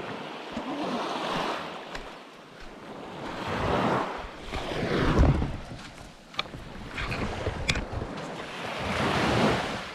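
Small waves washing up on a sandy beach, swelling and fading every few seconds, with wind buffeting the microphone.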